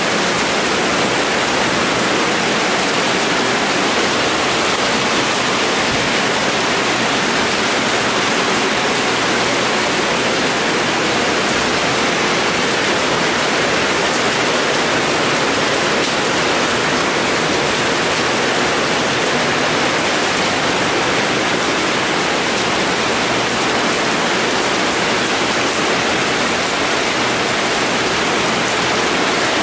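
Heavy rain falling in a steady, loud downpour, an unbroken hiss with no letup.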